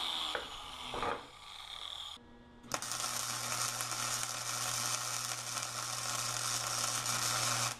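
The last of an angle grinder's whine with two knocks of steel, then from about three seconds in an electric welding arc crackling and hissing steadily with a low hum as a seam is laid on a steel post; it cuts off suddenly at the end.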